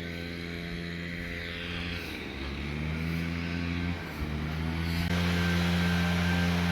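A vehicle engine running. Its pitch climbs about two seconds in, dips briefly near four seconds, then rises again and holds steady.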